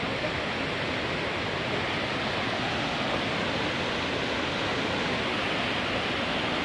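Fast, swollen mountain river rushing over rocks: a steady, even noise of turbulent water.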